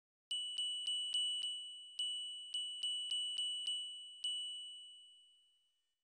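A bright electronic ding, the same high chime-like tone each time, struck about a dozen times in an uneven rhythm, roughly three a second, with a short pause after the fifth. Each strike rings briefly and fades, and the last one comes a little over four seconds in.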